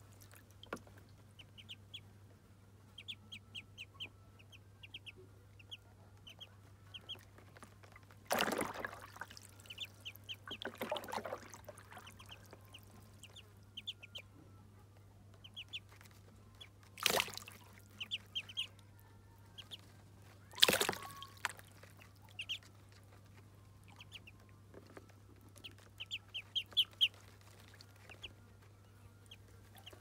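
Muscovy ducklings peeping, short high peeps in quick runs throughout. A few louder splashes and knocks break in, the loudest about 21 seconds in.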